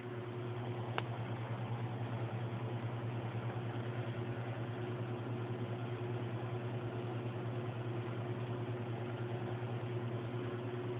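Domestic cat purring: a steady, low, fluttering rumble.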